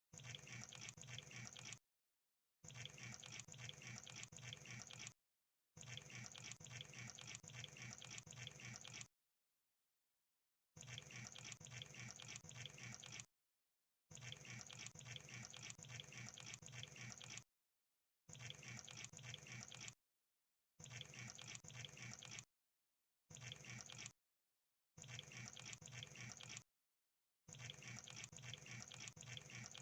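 Crab sound effect: about ten spells of rapid, fine clicking and crackling, each one to three seconds long, separated by short gaps of silence.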